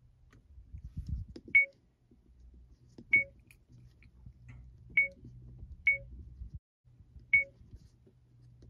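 70mai A200 dashcam's button tones: a short beep each time one of its menu buttons is pressed, five in all, one to two seconds apart, over faint handling noise from the finger on the buttons.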